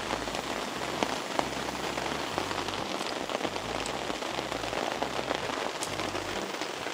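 Steady rain falling on a tarp and the wet ground around it, with scattered individual drop ticks.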